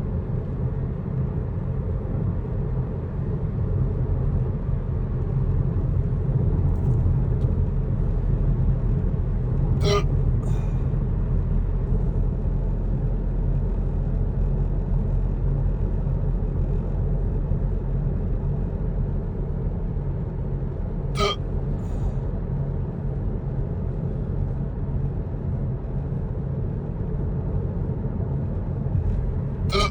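Steady low rumble of a car's cabin while driving, with a man hiccupping sharply three times, about ten seconds apart, the last near the end.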